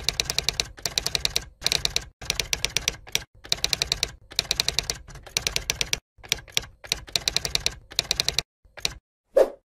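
Typewriter-style typing sound effect: quick runs of key clacks in bursts, with brief pauses between words, and a louder, lower knock near the end.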